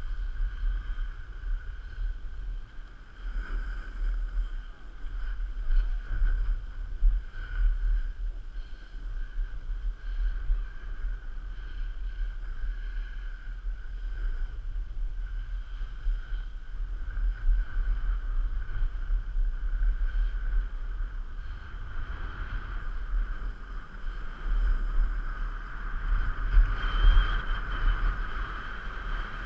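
Wind rushing over a GoPro's microphone during a fast run down a ski slope: a continuous low rumble with hiss, swelling in louder gusts a few times, mixed with the scrape of snow under the rider.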